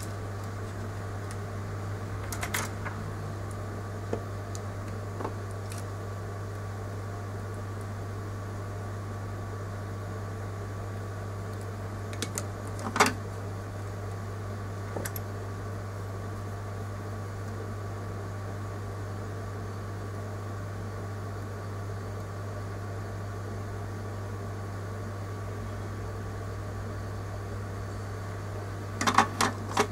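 Steady low hum with a few sharp clicks and taps: one about two and a half seconds in, a louder one about halfway through, and a quick cluster near the end.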